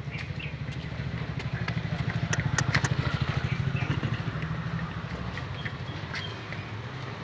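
An engine running steadily with a fast, even pulse, getting louder for a moment a couple of seconds in and then easing back. Sharp clicks and clanks are scattered over it.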